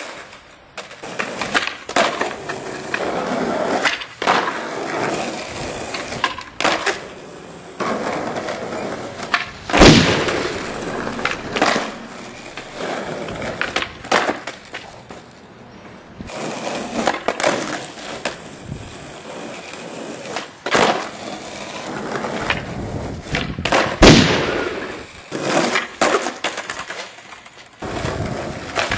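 Skateboard flatground tricks on asphalt: urethane wheels rolling, tails popping and the deck clacking and slapping down again and again, with two especially loud cracks, one about ten seconds in and one about five seconds before the end.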